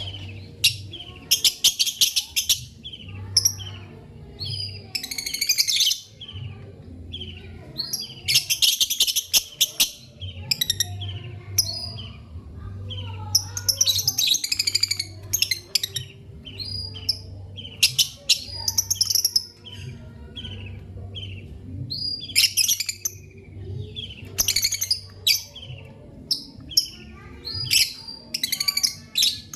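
Lovebirds chirping: a steady stream of short, sharp high chirps broken every few seconds by bursts of rapid, harsh chatter. A steady low hum runs underneath.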